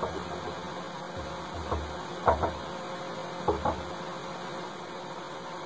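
Steady low room hum, with a few short faint knocks about two seconds in and again about three and a half seconds in.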